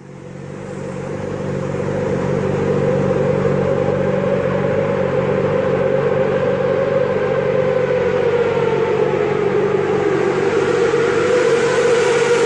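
Motorcycle engine running hard at sustained high revs, echoing inside a road tunnel. It swells in over the first couple of seconds, then holds steady, with the pitch easing slightly down in the later part.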